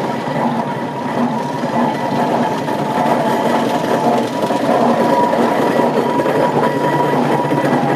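Steam traction engine running past at walking pace, a continuous mechanical clatter of its motion work and iron-tyred wheels on the road, growing louder as it comes closest about five seconds in.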